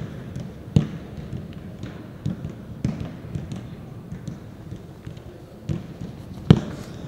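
Footballs being kicked back and forth in a quick passing drill on artificial turf: about six sharp knocks at uneven intervals, the loudest near the end, each ringing briefly in a large indoor hall.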